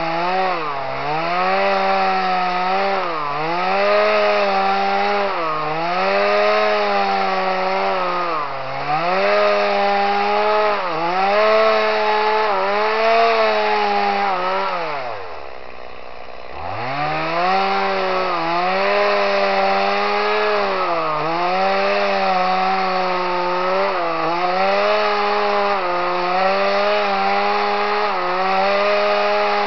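Petrol chainsaw at full throttle ripping a walnut log lengthwise into boards, its engine note sagging every second or two as it bogs in the cut. About halfway through it drops to idle for a second or so, then revs back up and cuts on.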